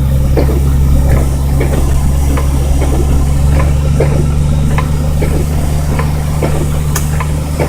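1987 Jeep Wrangler YJ's engine running steadily while driving, a low drone heard inside the cab, with scattered light clicks and rattles over it.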